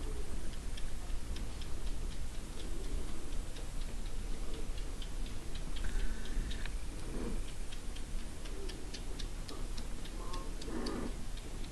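Kittens suckling at their mother cat: quick, irregular, small clicking and smacking sounds, several a second.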